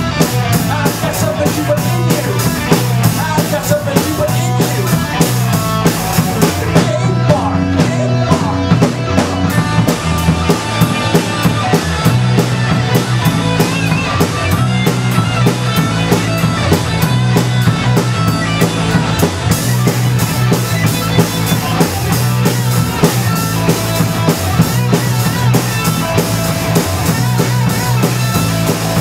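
Live rock band playing a loud, fast song: drum kit keeping a steady driving beat under electric guitars and bass, heard through the room.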